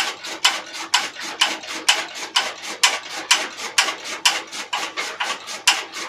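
Motor-driven flywheel chaff cutter chopping green fodder stalks fed in by hand: a regular crunch of the knives cutting through the stalks about twice a second, over a steady motor hum.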